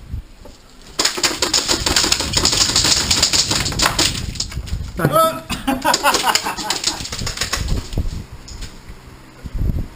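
Airsoft guns firing long, rapid full-auto bursts, a dense rattle of clicks that runs for several seconds and stops near the end, with a person shouting about five seconds in.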